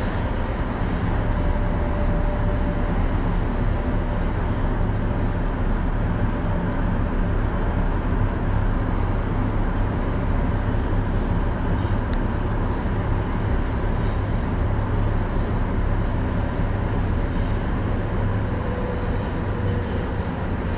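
Tokyo Metro 02 series subway car running at speed, heard inside the passenger cabin: a steady low rumble of wheels and running gear, with a faint whine coming and going.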